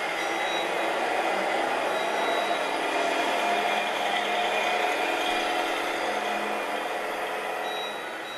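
Simulated diesel truck engine running steadily from an RC semi truck's electronic sound module, as the model tractor with its loaded tipper trailer drives past.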